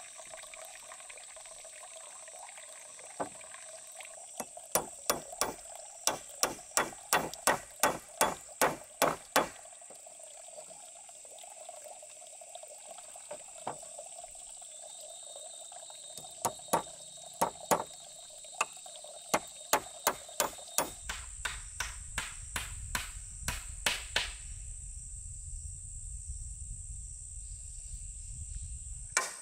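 Steel claw hammer driving nails into wooden logs, in runs of sharp strikes about two a second, with a pause in the middle. A steady high insect buzz runs underneath, and a low rumble comes in for the last several seconds.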